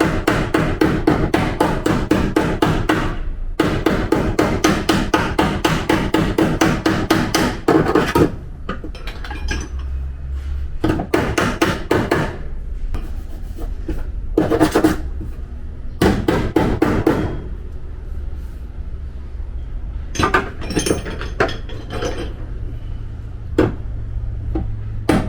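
Body-repair hammer striking a Toyota Sienta's steel body panel in fast runs of blows, about six a second, for the first eight seconds, then in shorter bursts with pauses: panel beating the dented sheet metal back into shape.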